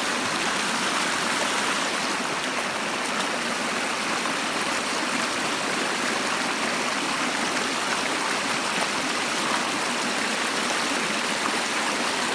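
A fast-running creek rushing steadily, a constant even wash of water with no breaks.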